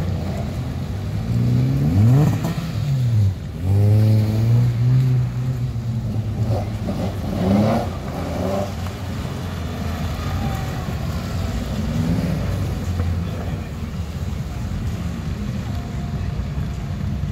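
Car engines revving as cars pull away one after another: a rev rising and falling about two seconds in, an engine held at a steady note for a couple of seconds after it, and more revving around seven to eight seconds in.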